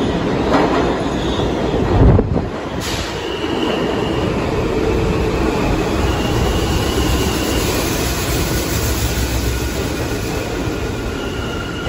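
New York City Subway R160 train pulling into an underground station: a steady rumble of wheels on rail, with a loud low rush about two seconds in. After that come high whining tones as it slows along the platform, the lower one falling slightly near the end.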